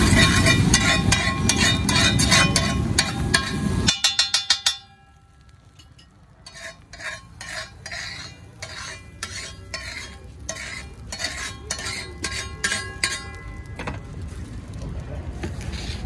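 Metal spatula stirring and scraping egg bhurji on a hot pan, with frying under loud background noise for about the first four seconds. About four seconds in there is a fast rattle of spatula strikes. After that come quieter, spaced metal clinks and scrapes.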